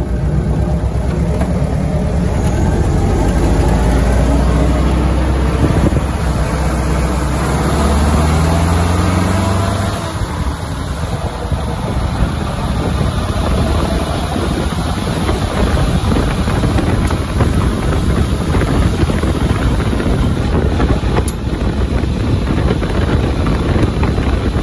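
Old military jeep driving on a gravel road: its engine note climbs in pitch over the first ten seconds as it picks up speed, dips briefly about ten seconds in, then the tyres run steadily over the gravel.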